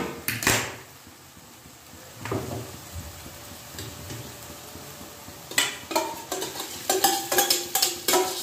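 Stainless-steel utensils clanking against a steel kadai as thick boiled toor dal is tipped and scraped out of a steel container into the pan. There is one sharp ringing clank about half a second in, then about two-thirds of the way through a quick run of ringing knocks and scrapes.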